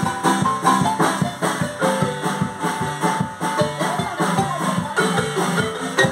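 Marimba band playing a lively tune: several players striking the wooden bars of a large marimba with mallets, rapid pitched notes over a steady beat.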